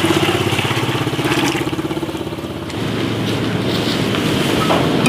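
A motor running steadily, over water running from a hose into a plastic basin; a metal pan clanks near the end.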